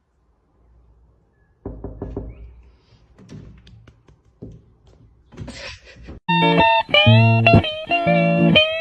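A second and a half of near silence, then a few scattered knocks and thuds. About six seconds in, loud electric guitar music starts with sliding notes.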